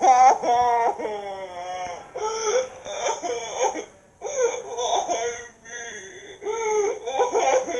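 Cartoon-style crying sound effect: a voice wailing and sobbing in wavering, warbling bursts with short breaks between them.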